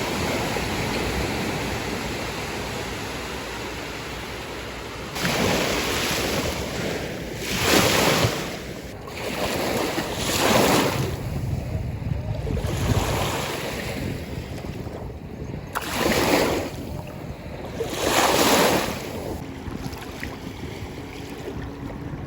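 Lake Michigan waves breaking and washing up the beach. A steady rush of surf swells into a louder break every few seconds, about six in all, starting about five seconds in. Wind rumbles on the microphone.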